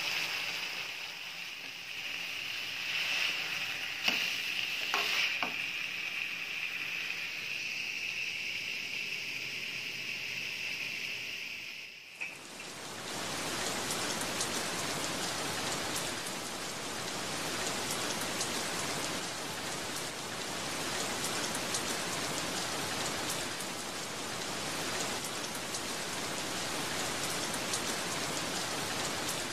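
Steady rain falling, an even dense hiss with fine patter, from about twelve seconds in to the end. Before it, a quieter steady high-pitched whine with a few faint clicks.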